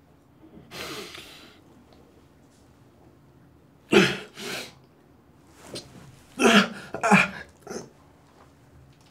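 A bound, injured man coming round and coughing: a long, noisy breath about a second in, two sharp coughs about four seconds in, then a cluster of three or four coughs and grunts near the end.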